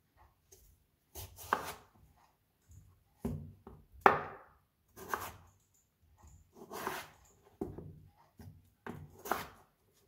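Kitchen knife slicing a peeled raw potato on a plastic cutting board: a series of separate cuts at an uneven pace, the loudest about four seconds in.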